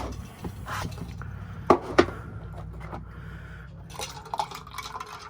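A few scattered sharp knocks and clatters of objects being handled, over a faint low hum.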